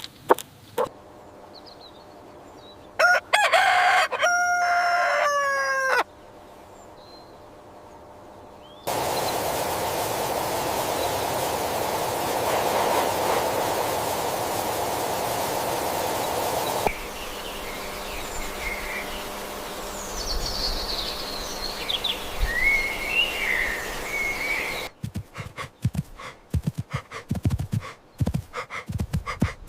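A rooster crowing once, about three seconds in. Later a stretch of steady rushing noise, then high chirps, and near the end a run of sharp clicks and knocks.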